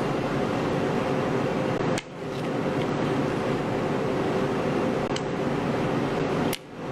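Steady background hum with a droning tone, dropping out briefly about two seconds in and again near the end.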